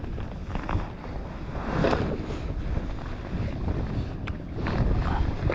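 Wind buffeting the microphone over open water, with small waves lapping against the plastic kayak hull and a few short handling noises.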